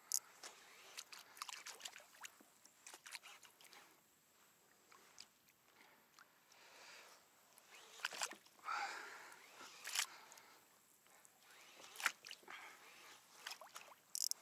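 A fishing reel being wound and the rod worked while playing a hooked fish: faint, irregular clicks and knocks, with a few sharper clicks about 8, 10 and 12 seconds in.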